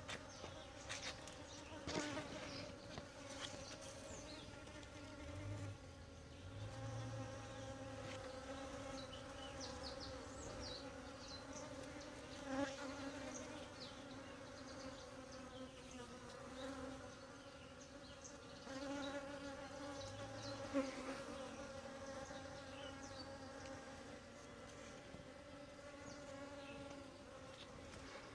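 Honeybees buzzing at their hive: a steady, droning hum of many bees together.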